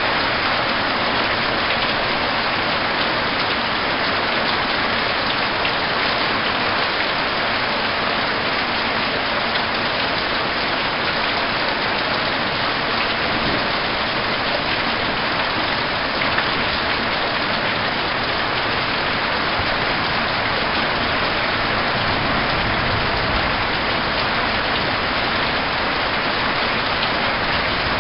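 Heavy storm rain falling steadily, an even, unbroken rush of rain on surfaces.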